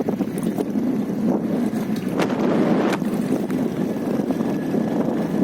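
Steady rush of wind on the microphone and tyre noise from a motorcycle coasting downhill with its engine switched off, with two brief knocks a little over two and about three seconds in.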